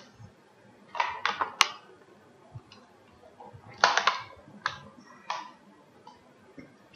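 A few short clicks and ticks in small clusters, about a second in and again from about four seconds in, with quiet room tone between.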